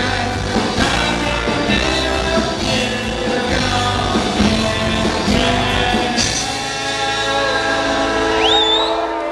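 Live rock band playing electric guitar, bass and drums, with a lead singer. About six seconds in the drumming drops away and the band holds sustained notes. A short rising whistle sounds near the end.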